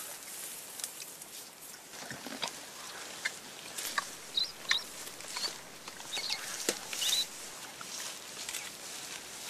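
Faint rustling and crackling of vegetation with scattered sharp clicks, and several short high chirps between about four and seven seconds in.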